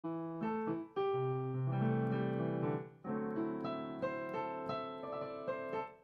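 Light solo piano music, held notes ringing with new notes struck over them, with two brief breaks about one and three seconds in.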